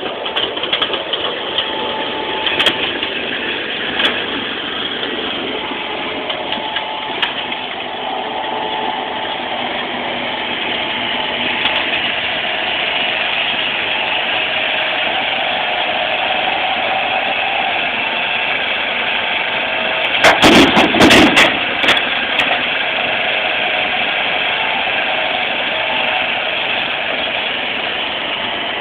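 John Deere compact track loader's diesel engine running steadily while the lift arms raise the loaded bucket. About two-thirds of the way through comes a loud clatter lasting a second or two, typical of concrete chunks crashing into a steel dump truck bed.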